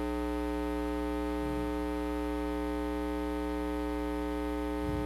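Steady electrical mains hum, a buzzing drone of many evenly spaced tones that does not change.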